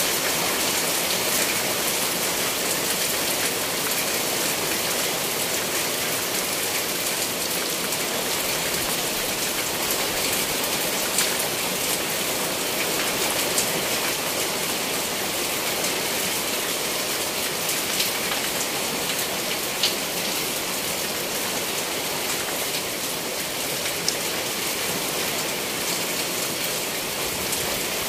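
Steady rain falling, with a few louder single drops striking close by.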